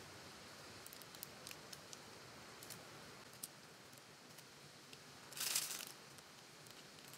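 Piping bag being squeezed to pipe buttercream rosettes: faint rustling and small ticks from the bag, with one louder rustle lasting about half a second, about five and a half seconds in.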